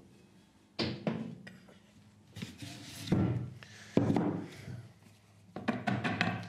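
A series of thunks and knocks, the loudest about three and four seconds in, with a quick run of clicks near the end, from handling a metal weighing pan on a dial scale and a cardboard drum while powdered strontium carbonate is scooped out to be weighed.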